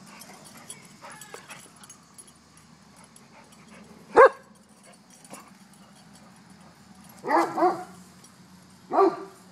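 A dog barking in short single barks: one near the middle, then two in quick succession, and a last one near the end.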